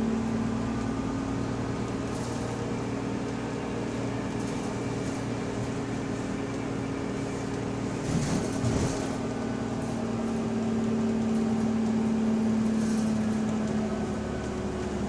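Bus drivetrain heard from inside while driving: a steady droning whine with held tones, growing a little louder about two thirds of the way through. This is the subtle, weird differential noise of the bus. A brief rattle or knock comes about halfway through.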